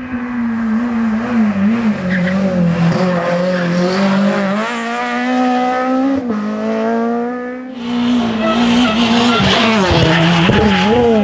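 Rally car engines at full throttle: a car accelerates hard, its engine note rising and falling through gear changes. After a short break about eight seconds in, another car revs with quick dips and rises in pitch.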